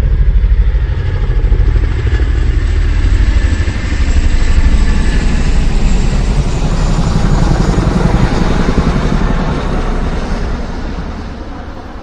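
Loud motor vehicle engine running with a rapid pulsing beat, swelling and dipping, then fading away near the end.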